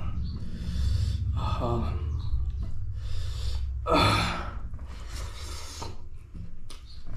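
A person gasping and sighing between mouthfuls while eating pork fry: about five loud, breathy in-and-out breaths, the strongest about four seconds in.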